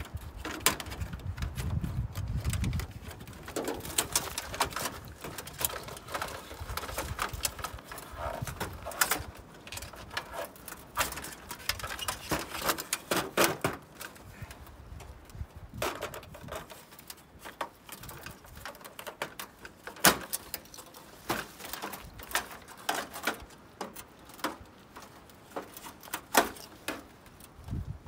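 Irregular clicks, taps and clatter of pliers and sheet-metal and plastic parts as a gas dryer's control panel and wiring are pried and pulled apart by hand.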